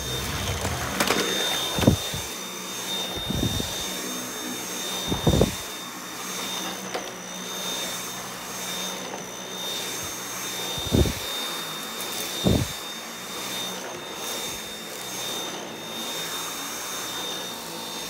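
Dyson V8 Absolute cordless stick vacuum running steadily with a thin high whine over its rushing noise, broken by about five dull knocks spread through.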